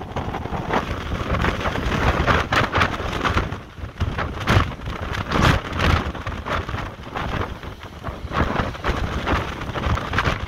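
Heavy surf breaking over rocks in gusting wind: a loud, dense rushing noise with a low rumble that swells and dips several times.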